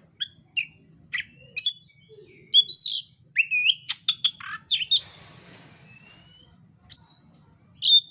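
Oriental magpie-robin singing: a string of short, sharp whistled notes and upswept slurs with brief gaps between them, and a harsher, noisy phrase about five seconds in.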